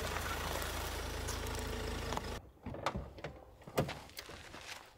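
Mahindra Scorpio SUV driving up, its engine and tyres running steadily; this cuts off sharply about two and a half seconds in. Then a few sharp clicks and knocks as its door is opened and someone steps out onto gravel.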